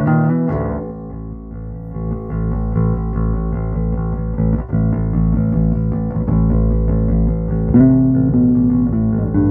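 Plucked electric string instrument, most likely a bass, played through a 1970s Acoustic 320 bass amp head. Notes ring and sustain, with a fresh, louder plucked attack near the end.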